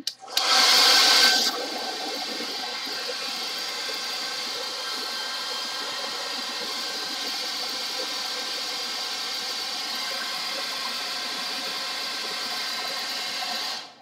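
Handheld hairdryer switched on and blowing steadily, a rush of air with a motor whine under it, loudest for the first second or so, then cut off just before the end.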